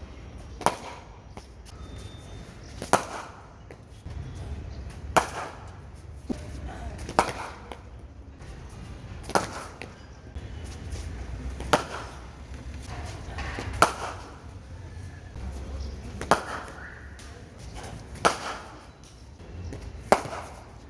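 Cricket bat striking the ball again and again: a sharp crack about every two seconds, about ten in all.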